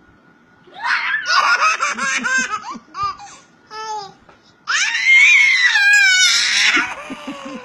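An 11-month-old baby laughing: a run of giggles about a second in, two short laughs, then a long, loud, high-pitched laugh that rises and falls in pitch from about five seconds in.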